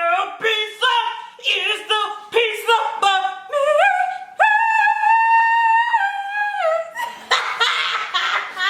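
A voice singing unaccompanied, sliding between notes and holding one long note about halfway through, then breaking off into noisier vocal sounds near the end.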